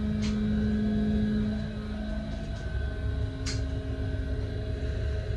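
Smoking booth's air filtration system running: a steady mechanical hum over a low rumble, with a single short click about three and a half seconds in.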